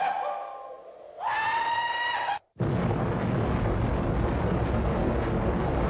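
A high, drawn-out tone that wavers and falls, then, after a brief break, the long, steady blast of a nuclear explosion.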